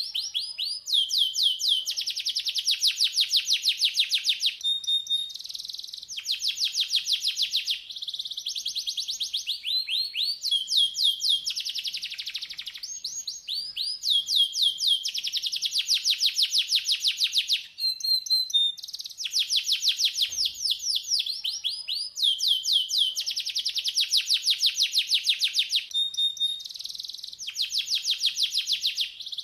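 Domestic canary singing a long song made of rapid trills, each a run of fast repeated notes, switching to a new trill every second or two. A few short, steady whistled notes fall between phrases.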